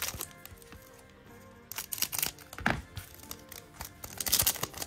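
Trading card pack wrapper crinkling and tearing as the pack is opened, in several short bursts, the longest near the end, over quiet background music.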